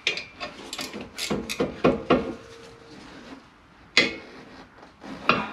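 Ratchet and socket clicking and clinking against metal as the bottom brake-caliper slide-pin bolt is undone: a quick run of clicks, then a sharp clink about four seconds in and another near the end.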